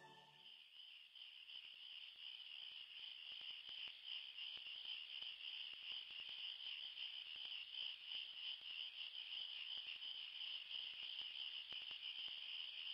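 Faint, steady chorus of crickets trilling without a break.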